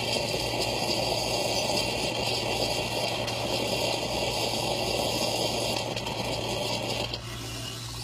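Miele built-in coffee machine frothing milk and dispensing it into a glass cup: a steady hiss and gurgle of steam-heated milk over the low hum of its pump, stopping about seven seconds in.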